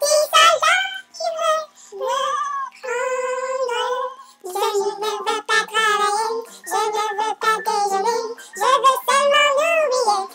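Young women singing in high voices, phrase after phrase, with a long held note about three seconds in.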